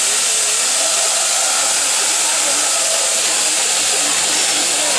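Steam hissing steadily from beneath the Bulleid Battle of Britain class steam locomotive Tangmere, a loud even hiss with no chuffing.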